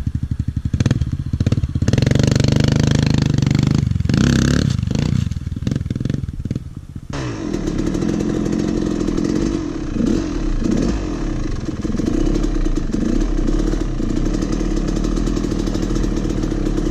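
Dirt bike engine running close to the microphone: it revs up about two seconds in, goes choppy on and off the throttle for a few seconds, then runs steadily with a rushing noise over it from about seven seconds in as the bike rides along.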